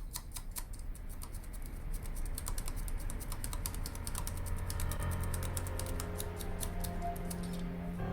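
Rapid run of small plastic clicks, several a second, like buttons being pressed over and over on a Philips remote control. The clicks stop shortly before the end, over faint background music.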